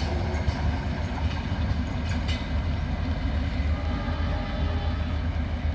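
Mitali Express passenger train running away from the listener: a steady low rumble, with a few faint wheel clicks over the rail joints in the first couple of seconds.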